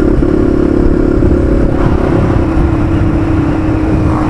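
Honda XLX 250R's single-cylinder four-stroke engine running at a steady cruise, its note holding level, over a heavy rumble of wind noise.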